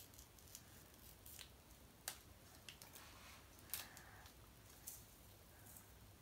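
Near silence with a few faint, short clicks and taps from hands handling a small glitter container and sprinkling glitter at a table.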